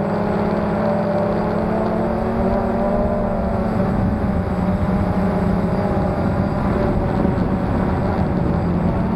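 Quadcopter's electric motors and propellers running, heard through the onboard camera, with a whine whose pitch wavers slightly as the throttle changes. Wind rumble on the microphone underneath.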